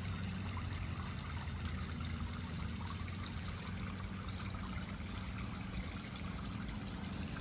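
Water spraying from an inflatable pool's hose-fed sprinkler spout and pattering into the pool water, a steady trickle with a low steady hum underneath.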